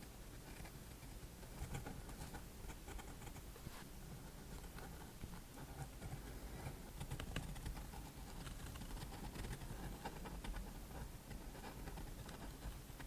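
Faint scratching and light, irregular ticks of a pen or brush tip drawing lines across the painting surface, over a low room hum.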